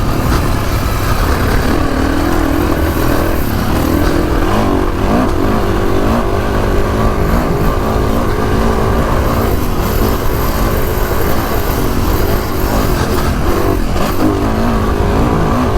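Kawasaki KX450X dirt bike's single-cylinder four-stroke engine revving up and down under varying throttle while riding, over heavy low wind rumble on the microphone.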